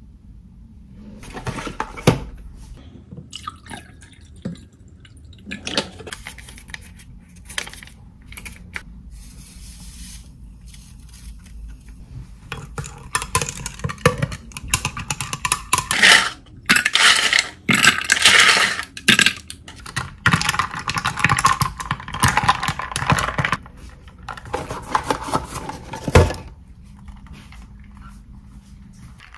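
A powdered lime kombucha drink being stirred in a glass with a thin wooden stick: liquid swirling and fizzing, with light clicks of the stick and the glass, in several loud spells through the middle. Scattered clicks of dishes and a plate being handled come before them.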